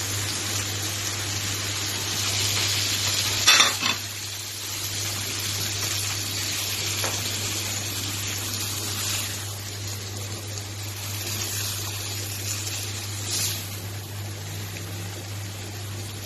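Stewed fava beans sizzling as they go into a frying pan of tomato, pepper and garlic sauce, with stirring and a sharp clatter of a utensil against the pan about three and a half seconds in, the loudest moment. Lighter knocks come later as the frying goes on.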